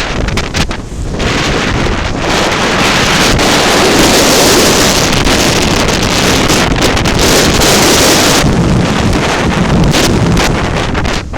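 Typhoon wind buffeting the microphone in loud, continuous gusts that are strongest through the middle, with sea surf heard beneath it.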